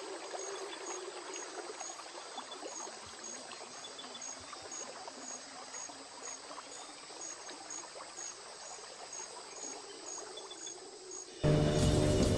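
Running, trickling water with an insect chirping at a steady, regular pace in the background. Near the end a much louder sound with music cuts in abruptly.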